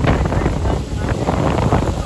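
Wind buffeting the microphone on a small motorboat under way, over the rush of its wake.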